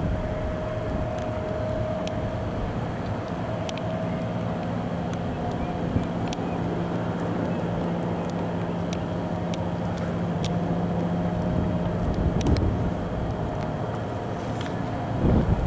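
Steady engine drone holding one pitch, under a haze of wind-like noise, with a few faint clicks and a louder low rumble at the very end.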